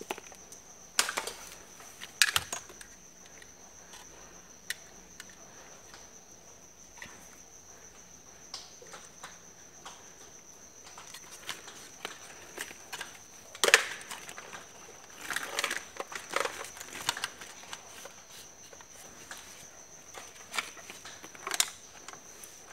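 Scattered clicks, taps and short rustles as an air conditioner control board and its wiring are handled and moved about, with the sharpest click about fourteen seconds in. A faint steady high-pitched whine sits behind the handling noise.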